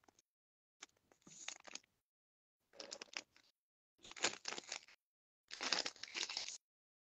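A clear plastic bag crinkling as it is handled, in four crackly bursts of about a second each.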